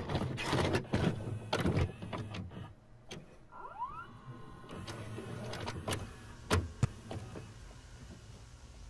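VCR tape mechanism loading a videotape and starting playback: a run of mechanical clicks and clunks, a motor whirring up in a short rising whine, then two more clunks.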